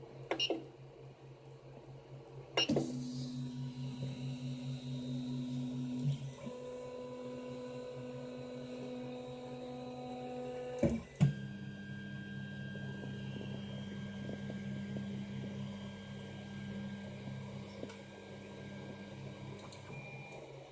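3D printer's stepper motors whining in steady tones that jump to a new pitch every few seconds as the moves change, with a few sharp clicks at the changes.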